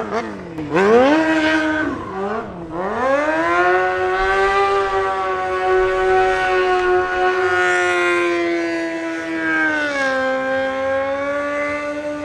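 Sportbike engine revved up and down in several quick sweeps, then held at a high, steady rev from about three seconds in. Near ten seconds the note steps down slightly and holds there.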